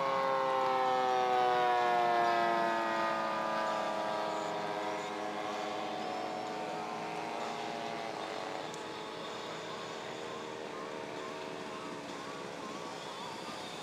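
Radio-controlled model airplane flying past, its engine note falling steadily in pitch over the first several seconds as it passes, then going on fainter and wavering as it flies away.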